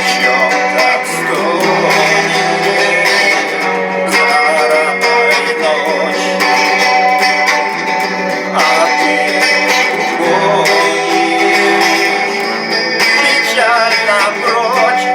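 Guitar music: a wavering melodic line over sustained chords, steady and loud throughout.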